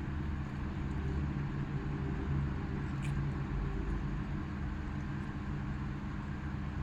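Steady low mechanical hum, with one faint click about three seconds in.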